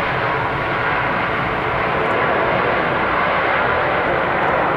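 Steady jet engine roar from a Boeing 737 airliner on the runway.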